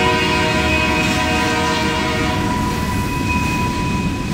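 Freight locomotive's air horn sounding one long chord, cutting off near the end, over the steady rumble of the passing train.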